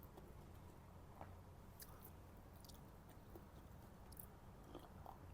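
Faint chewing of a mouthful of chicken biryani: soft, scattered mouth clicks over a low, steady room hum.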